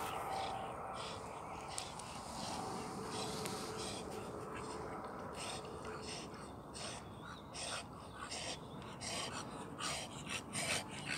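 Cocker spaniel swimming in toward the bank: short soft splashes and breaths come about twice a second from about halfway and grow louder as it nears.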